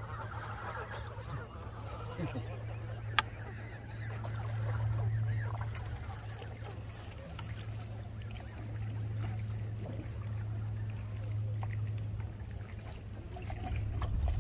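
Canada geese honking from a flock on the water, the calls thickest at the start and sparser after. A low steady rumble runs underneath, and there is a single sharp click about three seconds in.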